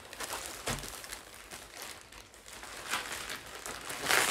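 Plastic poly mailer bags crinkling and rustling as they are handled and unfolded, in a string of short rustles with a louder crinkle near the end.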